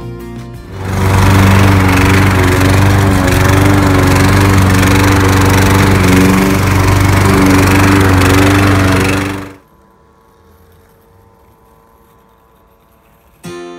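John Deere walk-behind lawn mower's single-cylinder petrol engine running loud and steady. It cuts off suddenly about nine and a half seconds in, leaving the faint, steady hum of a Husqvarna Automower robotic mower cutting grass, almost silent.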